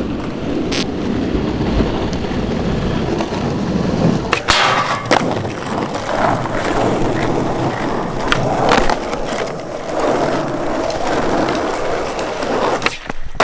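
Skateboard wheels rolling on rough asphalt, a steady gritty rumble broken by several sharp clacks of the board striking the ground, the loudest about four seconds in.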